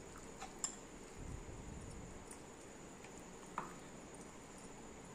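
A hand mixing marinated chicken pieces in a glass bowl, faint, with two light clicks against the glass, one just over half a second in and one about three and a half seconds in.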